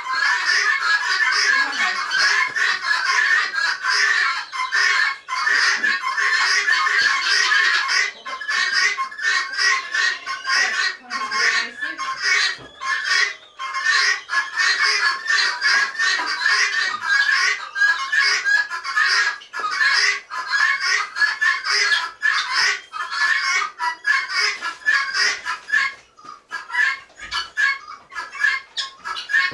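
Many birds calling at once: a dense, steady din of clucking and chirping calls.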